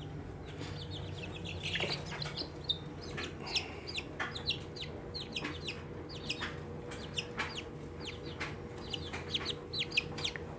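Young chicks peeping: a steady run of short, high, falling peeps, several a second, over a faint steady hum, with a brief rustle about two seconds in.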